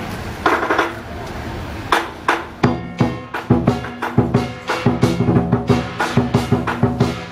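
Lion dance percussion ensemble: a hand gong and crash cymbals ring out twice in the first second. From about two seconds in, the drum joins with the gong and cymbals in a fast, steady beat of about three strokes a second.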